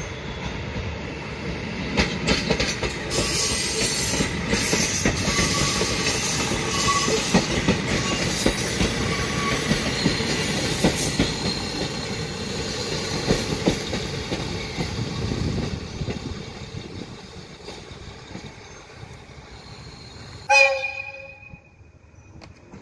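KiHa 40 diesel railcar running past close by, its diesel engine and the wheels clicking over rail joints, then fading as it moves away. About twenty seconds in comes one short train horn blast, under a second long.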